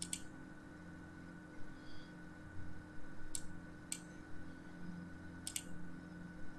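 A few sharp computer-mouse clicks, one at the start, two close together a little after halfway and one more later, as a colour is picked and an area is filled in a drawing program. Under them runs a steady low electrical hum.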